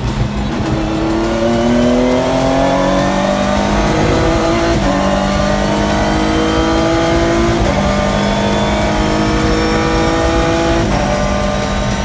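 Race car engine heard from inside the cockpit, accelerating hard and pulling up through the gears: its pitch climbs steadily, then drops sharply at three upshifts.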